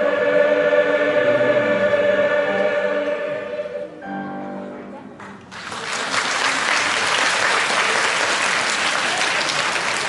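A choir holds a sustained final chord for about four seconds, which then fades. About five and a half seconds in, the audience breaks into steady applause.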